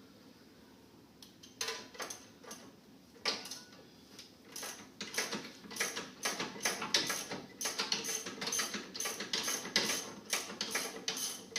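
Ratchet wrench clicking in quick repeated strokes as a brake caliper bolt is backed out. The clicking starts after a short quiet moment and grows steadier and faster from about four seconds in.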